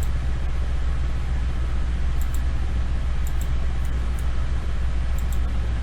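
Steady low electrical hum with an even background hiss, marked a few times by faint short ticks.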